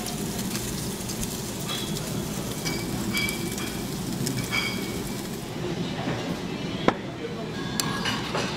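Pork belly sizzling as it cooks, with short metallic clinks of utensils. The sizzle falls away about five and a half seconds in, leaving clinks and a few sharp clicks.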